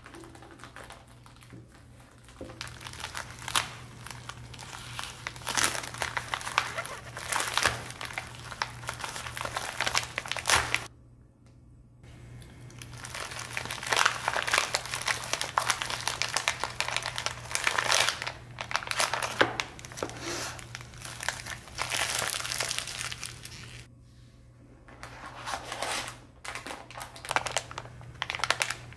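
Plastic and foil packaging crinkling as a mailer bag is handled and opened. It comes in long bouts of rustling with two short pauses, about eleven seconds in and about twenty-four seconds in. A low steady hum sits underneath.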